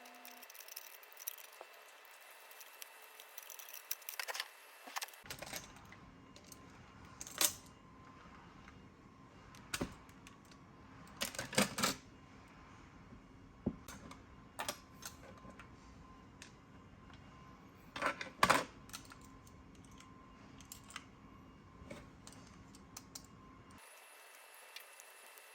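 Irregular clicks, taps and small knocks of hard plastic toy parts being handled and fitted together, with a few louder clacks about a third of the way in, near the middle and about two thirds of the way through.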